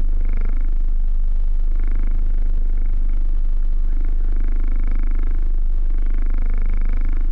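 Motorboat engine running with a steady low drone, with intermittent higher-pitched sounds coming and going over it.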